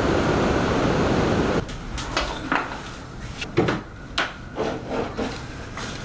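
Steady rush of sea surf and wind that cuts off suddenly about a second and a half in, giving way to a few separate knocks and rubbing as a surfboard and gear are handled.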